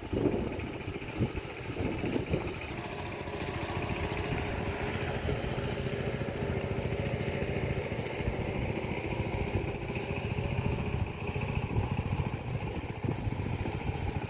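A small engine running steadily, with a few knocks in the first couple of seconds.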